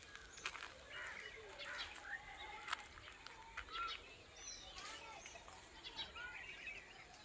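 Several wild birds chirping and calling in short rising and falling notes that overlap one another, with scattered short clicks in between.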